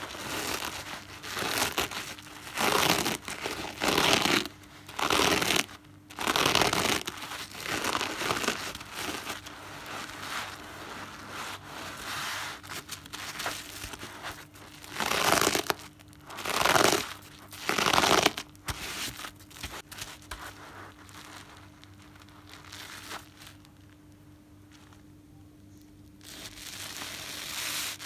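A soap-lathered, coarse-pored natural car-wash sponge being squeezed and kneaded by hand: wet, crackling squelches of foam and sponge in irregular bursts, with a quieter stretch near the end.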